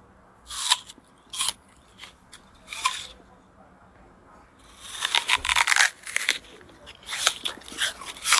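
Mukbang-style eating sound effects: short crisp crunching bites, a few spaced apart, then a dense run of rapid crunching about halfway through and more bites near the end.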